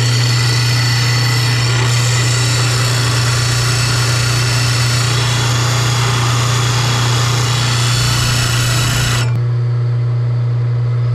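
Bench disc sander grinding the end of a stainless steel exhaust tailpipe to level its angled cut, a steady grinding noise over a constant low hum. The grinding stops abruptly about nine seconds in as the pipe is lifted off, and the hum carries on.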